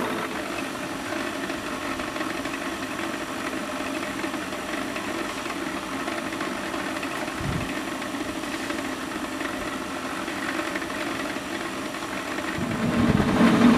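Electric blower fan on a miniature steam locomotive's chimney, running steadily with a faint hum as it pulls air through the coal fire to raise steam. A single low thump about halfway through, and the sound grows louder near the end.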